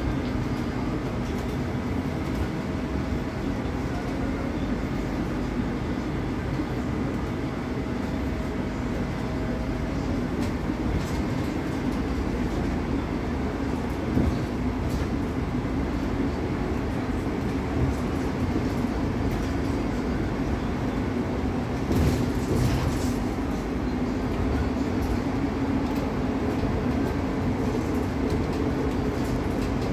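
Inside a moving Ursus city bus: steady rumble of the bus under way, with a few short knocks or rattles from the cabin.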